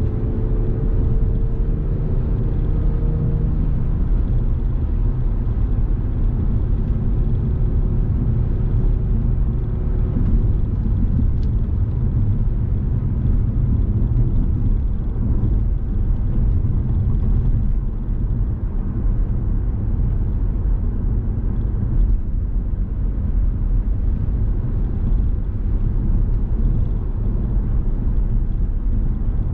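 Car driving along a road: a steady low rumble of road and engine noise, with a faint engine note that rises slightly in the first few seconds.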